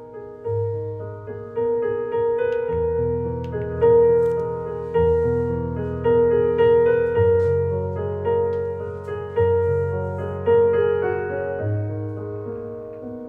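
Piano music, chords struck about once a second and fading over held low bass notes.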